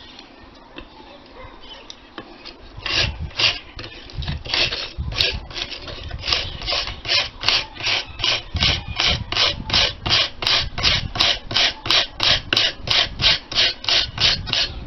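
A small hand brush scrubbing rust off an old iron corner bracket in quick back-and-forth strokes. It starts about three seconds in and settles into a steady rhythm of about three strokes a second.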